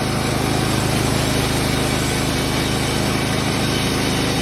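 Woodland Mills HM130 Max portable bandsaw mill running steadily under throttle, its gas engine driving the band blade through a log as the head is pushed along.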